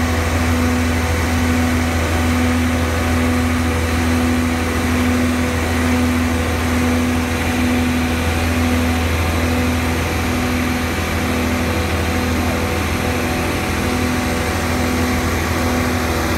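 Engine of a heavy house-moving trailer rig running steadily: a loud low hum with a humming tone that pulses a little over once a second.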